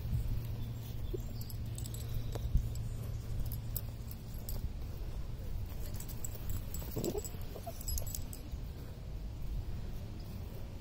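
Light metallic jingling and clicking from a dog's metal leash clip and collar over a steady low rumble. A brief squeaky, wavering sound comes about seven seconds in.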